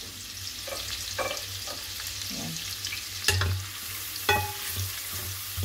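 Chopped garlic sizzling in melted butter in a stainless steel wok, stirred with a wooden spatula. The spatula knocks sharply against the pan twice, a little past the middle.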